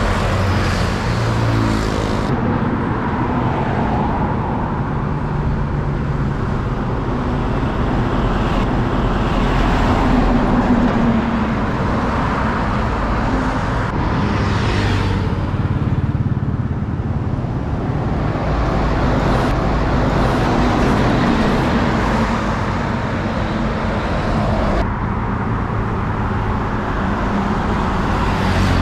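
Continuous highway traffic passing close by: truck, car and motorbike engines with tyre noise, swelling and fading as each vehicle goes past.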